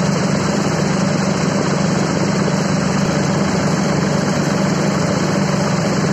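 Mahindra Yuvo 575 DI tractor's diesel engine running steadily, driving a large winnowing fan that gives a constant rush of air.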